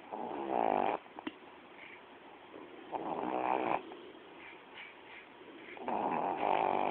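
Pet dog snoring in its sleep: three rasping snores about three seconds apart, each lasting just under a second, with quieter breathing between them.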